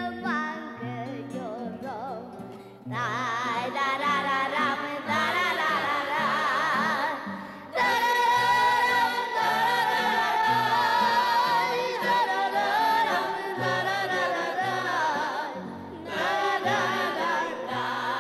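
Background music: a song with a sung voice wavering in pitch over a bass line that steps from note to note.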